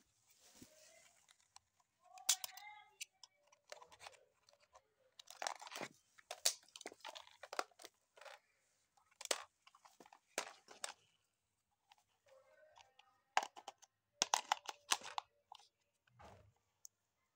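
Irregular sharp clicks, taps and crackles of plastic and cardboard being handled close by, with brief faint voices in the background twice.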